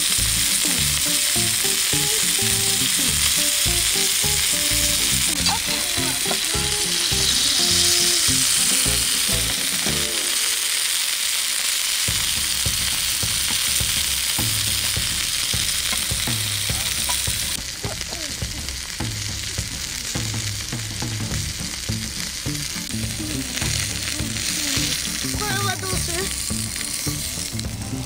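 Bacon wrapped around a whole Camembert sizzling steadily in a skillet over a camp gas burner, its fat frying as the cheese inside heats to melting; the sizzle drops a little in level a little past halfway.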